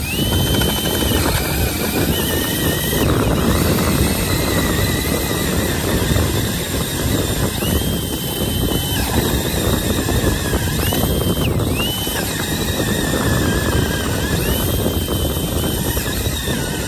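Cordless drill driving an ice-auger bit down through lake ice: a steady grinding of the blades cutting ice, with the drill motor's high whine rising and holding several times.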